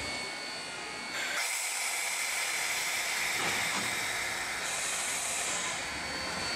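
Steady hiss from the steam locomotive, stepping up suddenly about a second in and holding, brighter for about a second near the middle.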